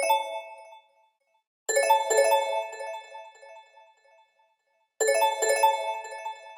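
Amazon Fire Phone ringtone: a short phrase of bell-like struck notes that rings out and fades, repeating about every three seconds. The tail of one phrase fades at the start, and the phrase then sounds twice more.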